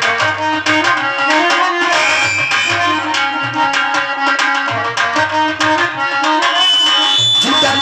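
Live instrumental interlude of Indian folk devotional music: a hand drum plays a steady rhythm of strokes under a sustained, droning melody instrument.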